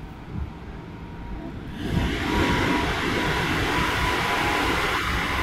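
Keikyu 1500-series electric train running at speed, heard inside the passenger car: a steady rumble and hiss of wheels on rail that turns suddenly much louder about two seconds in, as the train enters a tunnel, and stays loud.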